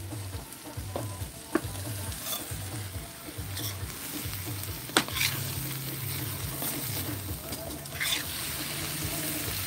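Spatula stirring shrimp and drumstick-pod curry as it fries and sizzles in a metal pan over a charcoal fire, with a few sharp scrapes and taps of the spatula against the pan.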